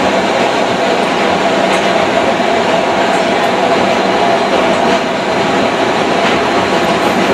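New York City subway train running between stations, heard from inside the car as a loud, steady din of wheels on track.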